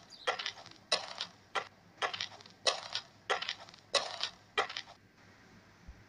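Footsteps crunching on gravel at a steady walking pace, about one step every two-thirds of a second, stopping near the end.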